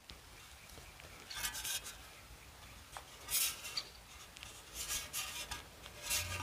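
Hands turning a bare-metal scooter exhaust pipe, skin rubbing and scraping on the steel in short bursts.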